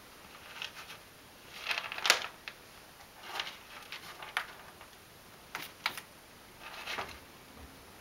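Ragdoll cat scratching at cat litter in a hooded plastic litter box: irregular bouts of gritty scraping and clicks, the loudest about two seconds in.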